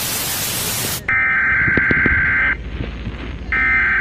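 A burst of radio static that cuts off sharply about a second in. It is followed by two bursts of high electronic data tones, each about a second and a half long with a pause of about a second between them, like the header of an emergency broadcast alert. Faint knocks sound underneath.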